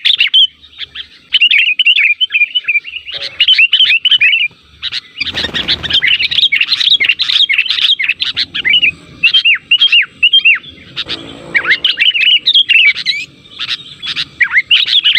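Sooty-headed bulbuls (kutilang) calling in fast, overlapping runs of sweeping chirps, with short gaps between the runs. Two short bursts of noise come about five and eleven seconds in.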